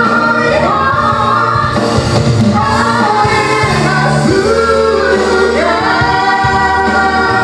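A woman and a man singing a duet into microphones over electronic keyboard accompaniment, through a PA system. Her voice is high and shrill, holding long notes with vibrato, with a rising slide about four seconds in.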